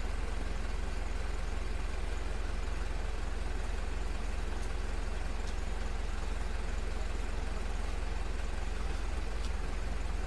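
Mitsubishi Fuso truck's 4M50 four-cylinder common-rail turbodiesel idling steadily, a low, even rumble.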